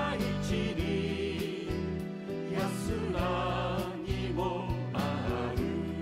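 Background music: an instrumental passage of a Japanese song, a wavering lead melody over sustained low chords and a steady beat.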